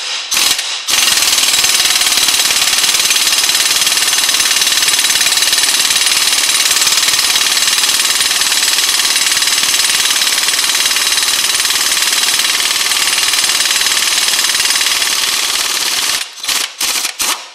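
Pneumatic impact wrench (air gun) hammering on a rust-seized suspension bolt that has been heated with a blowtorch. A couple of short blips, then about fifteen seconds of unbroken rapid hammering, then a few short bursts near the end as the bolt works free.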